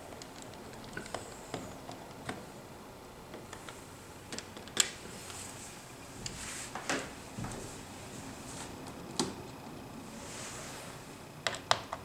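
Scattered light clicks and taps at irregular intervals from hands handling small tools on a desk, over faint room noise.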